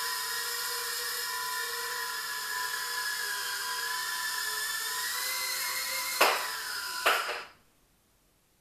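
Eachine Turbine QX70 micro quadcopter's coreless motors and propellers whining steadily, the pitch drifting a little with the throttle. About six seconds in come two sharp knocks a second apart as the quad strikes something, and the motors then cut out to near silence.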